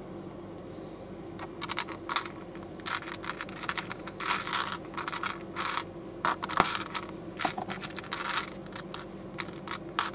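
Small plastic building bricks clicking and clattering as they are handled, picked up and pressed together. An irregular run of sharp clicks starts about a second and a half in.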